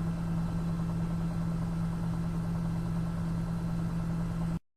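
Beko WTV 8634 XC0 washing machine spinning at 800 rpm on its Cotton Eco programme: a steady, fairly quiet motor hum with one strong low tone, which cuts off suddenly near the end.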